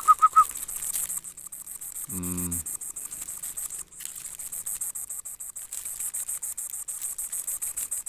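Insect trilling steadily, a high-pitched buzz pulsing about six times a second. Right at the start come four quick short chirps, and about two seconds in a brief low hum.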